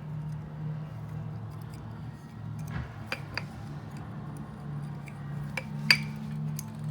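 Small metal engine parts, piston rings and liner-kit pieces, being handled by hand: a few light clicks and taps, with one sharper click about six seconds in, over a steady low hum.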